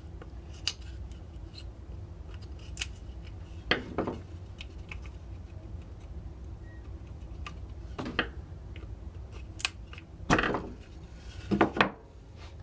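Wooden pine plugs being pried out of a plug-cut board with a screwdriver: scattered light clicks and snaps of wood and metal on wood, with a few louder snaps, two of them close together near the end.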